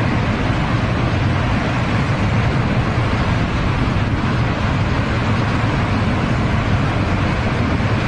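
Debris flow of boulders and muddy water pouring down a gully past a waterfall: a loud, steady rumbling rush.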